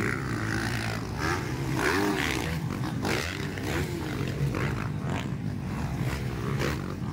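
Motocross dirt bike engines racing on the track, their pitch rising and falling over and over as the riders open and close the throttle.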